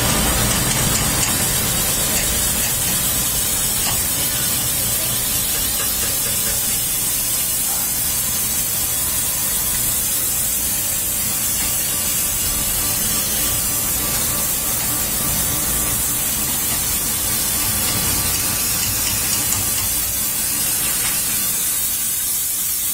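Dry vapor steam cleaner jetting steam through its nozzle: a steady, high hiss that runs on without a break.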